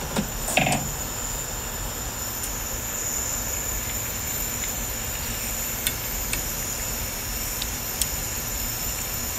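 A pot of crab and enoki mushroom soup boiling hard, a steady bubbling hiss. A few light clicks come near the end as a plastic ladle is put in to stir.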